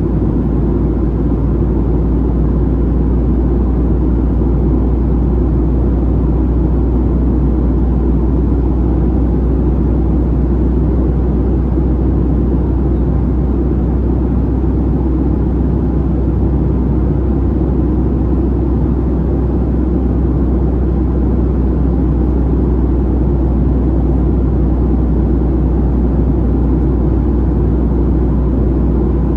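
Steady cabin noise of a Boeing 737-700 in flight: its CFM56-7B engines and the rushing airflow make a constant deep rumble with no change in pitch or level.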